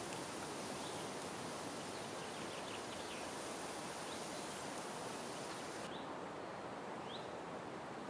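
Countryside outdoor ambience: a steady, even hiss of air and foliage, with a few faint, short bird chirps scattered through it.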